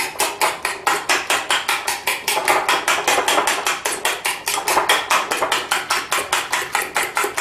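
Eggs being beaten by hand in a glass bowl: a utensil clicking against the bowl in a fast, even rhythm of about six strokes a second.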